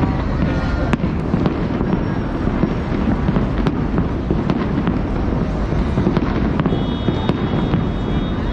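Aerial firework shells bursting in quick succession: a continuous low rumble of bangs with many sharp cracks throughout.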